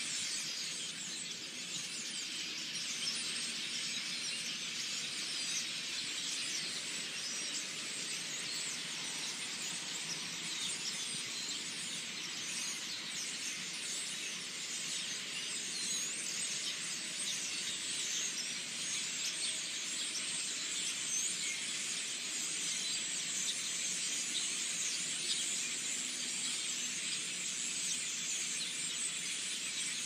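A huge flock of perched birds calling all at once: a dense, steady chatter of countless overlapping high chirps that never lets up.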